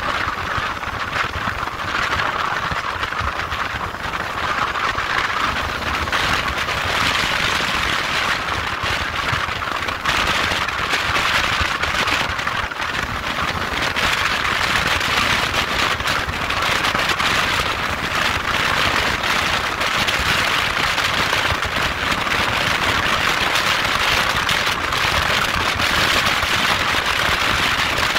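Steady rushing noise of a motorcycle ride on the onboard microphone: wind and road noise, with a fine crackle throughout and no clear engine note.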